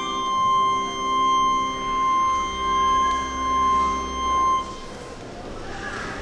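Organ music holding a final chord, which releases about four and a half seconds in and leaves a reverberant tail fading out.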